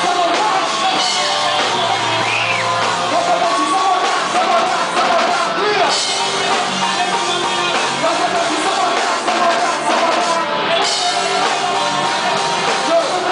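Live rap performance with a full band: rappers' voices through microphones over drums and amplified instruments, loud and steady throughout.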